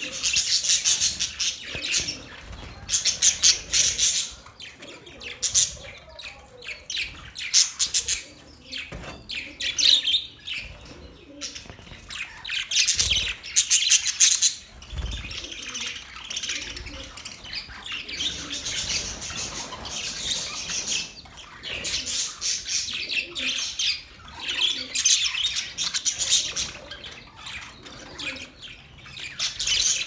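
A flock of budgerigars chirping and chattering, dense high warbling calls that swell and ease off in waves every few seconds.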